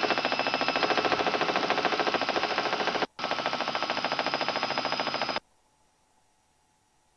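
Robinson R66 turbine helicopter in flight: a rapid, steady beat of the rotor blades with a high whine over it. It drops out for an instant about three seconds in and cuts off abruptly about five seconds in, leaving only a faint hum.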